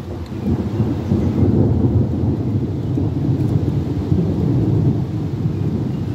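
Slow, rumbling thunder: a long, low rolling rumble that swells about a second in and carries on unbroken.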